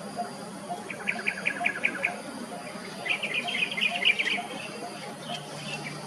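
Coppersmith barbet calling: a steady run of short low 'tuk' notes, about two a second, evenly spaced like metal being struck. Two louder series of quick, higher chirping notes come in about a second in and again around three to four seconds.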